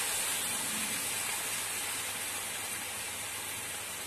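Jackfruit curry in a kadhai sizzling and hissing just after water has been poured into the hot masala, a steady hiss that slowly dies down.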